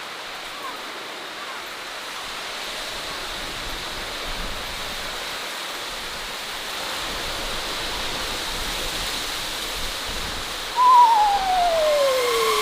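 Spooky sound-effect ambience: a steady rushing hiss, then, near the end, a loud long wail that wavers briefly and slides down in pitch.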